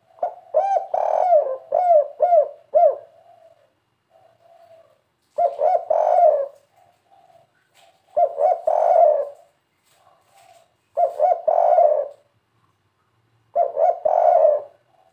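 Spotted dove cooing, the 'kuk 3' call type: a first run of about six quick coos, then four more short phrases at intervals of two to three seconds, with soft coos between.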